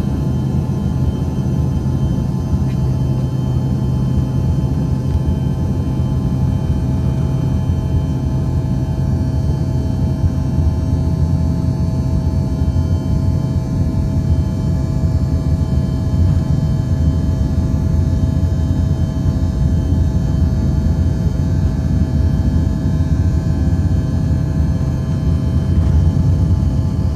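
Embraer ERJ-145's rear-mounted Rolls-Royce AE 3007 turbofan heard from inside the cabin right beside it as the jet rolls along the runway. It is a loud, steady rumble with several steady whining tones above it, getting a little louder near the end.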